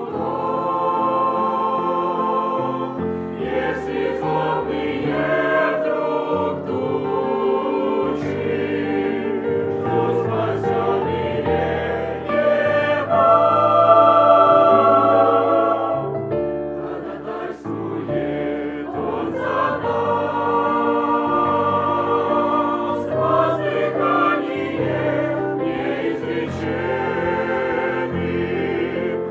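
A choir singing a Russian Christian song in sustained chords of several voices, with brief pauses for breath between phrases.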